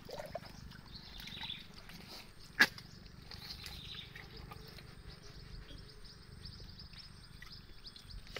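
Quiet mangrove mudflat at low tide: a faint, steady crackle of many small ticks, with one sharp click about two and a half seconds in.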